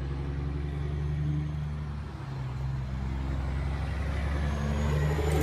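Heavy trucks passing on the road, their diesel engines running with a steady deep drone that grows louder near the end, and a faint high whine above it.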